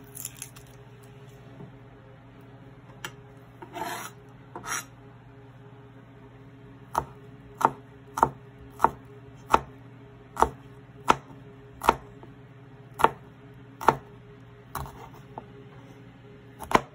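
Chef's knife slicing a garlic clove on a plastic cutting board: a steady run of sharp knife taps on the board, a little more than one a second, starting about seven seconds in. Before that, a few soft rustles of garlic skins being peeled by hand.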